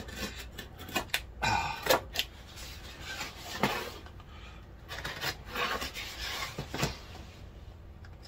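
A folding knife slitting the packing tape along the seams of a cardboard shipping box, in a series of short, irregular cutting strokes, with the box shifting and rubbing against a wooden table as it is turned.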